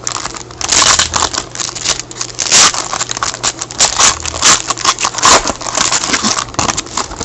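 Plastic card pack wrapper crinkling and crackling as it is torn open and handled.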